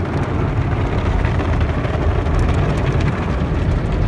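Automatic car wash running over a car, heard from inside the cabin: a steady low rumble with the hiss of water and soap spraying onto the windshield.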